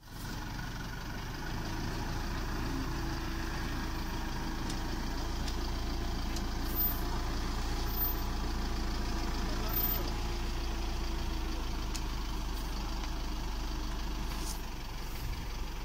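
Isuzu D-Max 3.0 Ddi four-cylinder turbodiesel pickup engine idling steadily.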